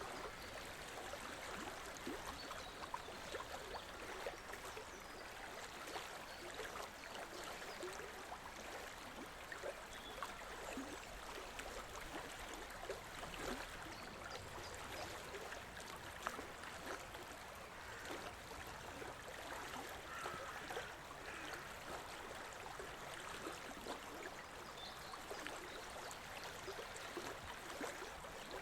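River water flowing: a steady rush with many small splashes and trickles.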